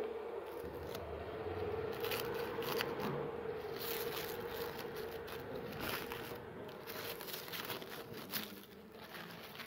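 Clear plastic protective wrap being handled and pulled off the front of a new motorcycle, crinkling and crackling irregularly. A faint steady hum lies underneath and fades out in the second half.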